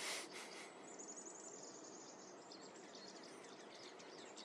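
Small birds chirping in a rapid, high-pitched twitter over a steady hiss of outdoor noise, after a brief rush of noise at the very start.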